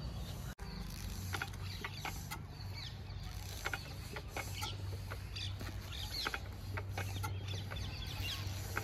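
Chickens clucking: many short calls falling in pitch, repeating irregularly over a steady low hum.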